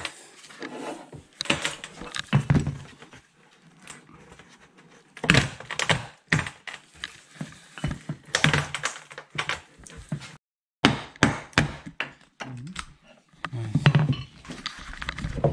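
Irregular knocks, clicks and scraping as a wooden-handled flat blade is worked into the parting line between the halves of a composite wing mould, prying them apart.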